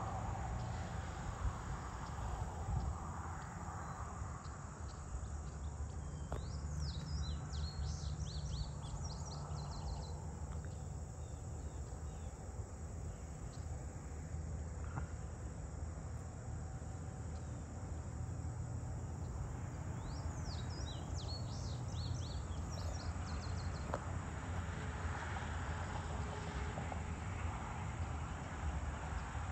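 Steady high-pitched chorus of crickets and other insects, over a steady low rumble. A songbird sings two short, quick phrases, about 7 and 20 seconds in.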